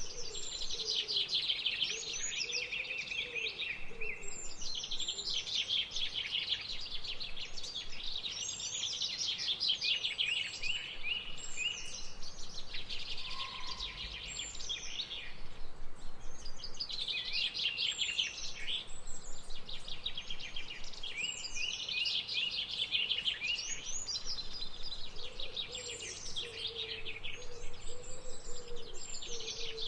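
A chorus of several songbirds singing and chirping at once, with rapid overlapping trills and calls and no break. A lower, softer warbling call joins at the start and again near the end.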